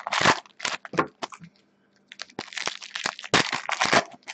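Foil wrapper of a trading-card pack being torn open and crumpled by hand: a run of sharp crackles, a short pause about a second and a half in, then denser crackling.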